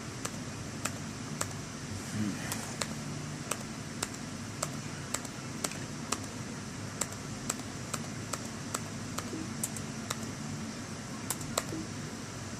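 A 2009 MacBook being clicked while apps are quit: a run of sharp single clicks, roughly two a second, over a faint steady low background noise.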